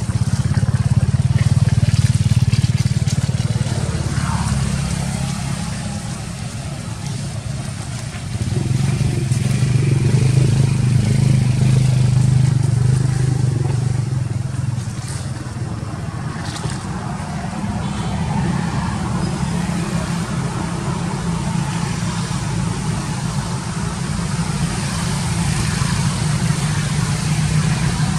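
A motor engine running, a steady low hum that swells and eases, loudest a couple of seconds in and again around ten seconds in.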